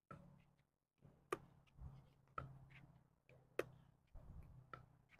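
Faint pickleball dinking rally: sharp pops of paddles hitting a plastic pickleball, with softer ticks of the ball bouncing on the court, several about a second apart.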